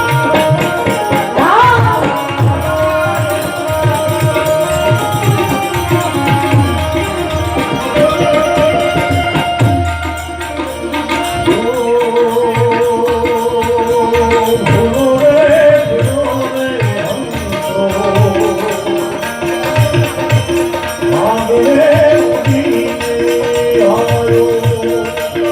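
Gujarati folk music: tabla-style hand drums keep a beat under a wavering melody line, with a run of quickly repeated notes in the second half.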